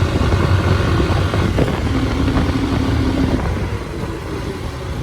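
Motorcycle engine running on the move, with a steady low hum that eases off a little in the last second or so.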